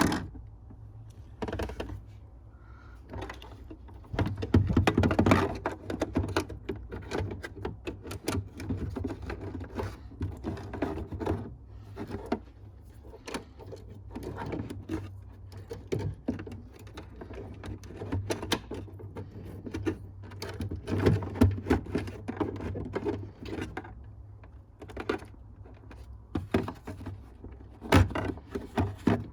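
Hands working on a car taillight install: irregular plastic clicks, knocks and rustling as wiring is tucked in and the taillight housing is handled and fitted, with a sharp knock near the end, over a steady low hum.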